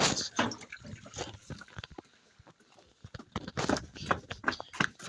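Water splashing and dripping in irregular spurts, quieter for a second or so in the middle.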